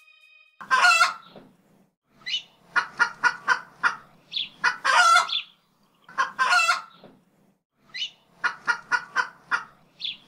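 Chicken clucking in repeated phrases: quick runs of short clucks, each followed by a longer drawn-out call.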